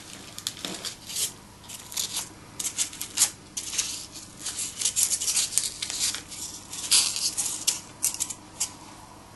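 Hands working wire through chicken wire and the plastic of a taxidermy body form: irregular scratching and rustling in many short strokes, stopping shortly before the end.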